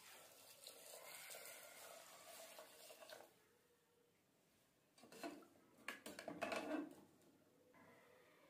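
Water poured into an aluminium pressure cooker for about three seconds, then, after a short pause, a spoon stirring and clinking against the cooker's sides.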